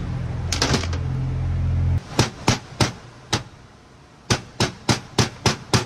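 Hammer tapping a pin punch to drive a pin into a short-shift transmission plate: about a dozen sharp taps in short runs, roughly three a second. A loud low hum sits under the first two seconds and cuts off abruptly.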